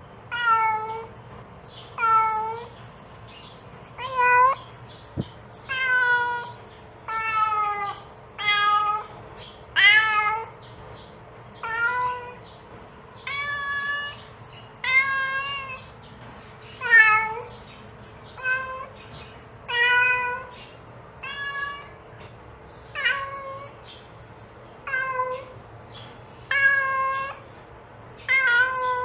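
A mother cat calls her kittens with short, repeated meows, roughly one every second or two. Each meow bends in pitch.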